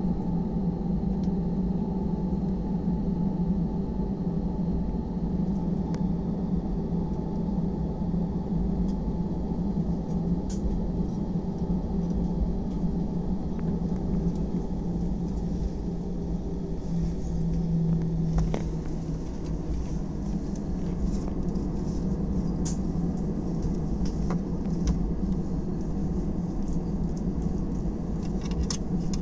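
Steady drone of an airliner cabin: jet engine and airflow noise with a low rumble, broken only by a few faint clicks.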